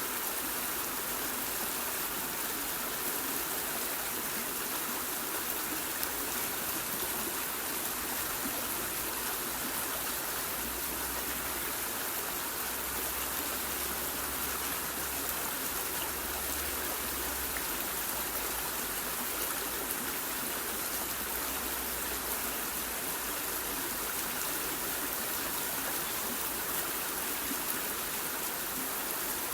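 Waterfall: steady rushing and splashing of falling water, even and unbroken, mostly a bright hiss.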